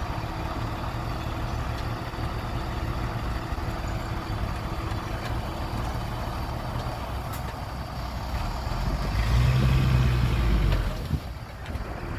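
Heavy earth-moving machinery diesel engine running steadily, then working harder and louder for about two seconds near the end before dropping back, with a short knock as it eases off.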